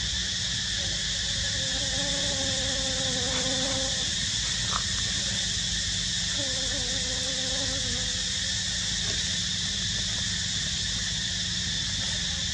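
Steady high-pitched drone of an insect chorus, unbroken throughout, with a faint wavering call heard twice for about two seconds each.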